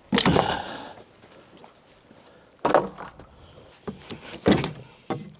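A steel pry bar working nailed boards of an old wooden step loose: one longer loud wooden noise at the start, then about four sharper knocks as the boards shift against their nails.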